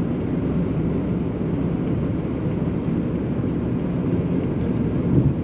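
Steady road noise inside a car cruising at highway speed: an even, low rumble of tyres and wind through the closed windows.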